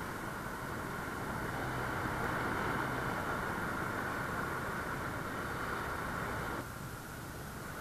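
Steady drone of an outrigger passenger boat (bangka) running at speed in rough water, its engine mixed with wind and water rushing past the hull. About six and a half seconds in it drops a little and the higher hiss fades.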